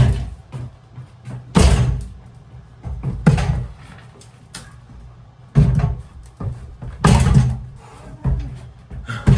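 Heavy thuds every second or two, each with a short ringing tail: a heavy jackhammer and its case being bumped down a flight of basement stairs.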